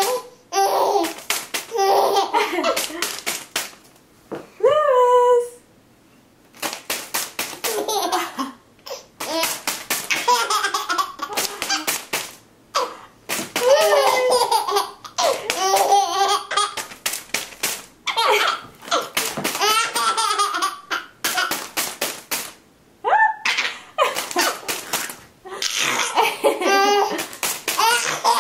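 Baby laughing hard in repeated fits of belly laughs and high squeals, with brief pauses for breath between fits. Many short, sharp snaps run through the laughter.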